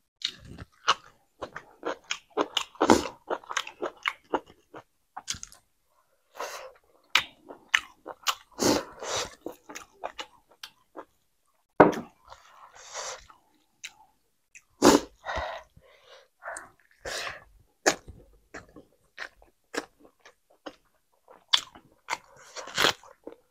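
A person chewing and biting food close to a clip-on microphone, in short irregular mouth smacks and chews with brief pauses between mouthfuls.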